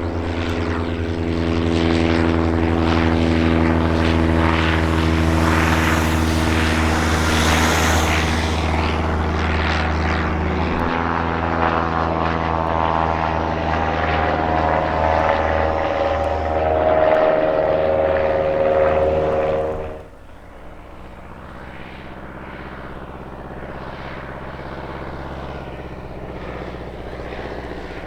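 Propeller aircraft's piston engine running loud and close, its note sliding lower as it goes by. About two-thirds of the way through the sound drops suddenly to a quieter, more distant engine drone.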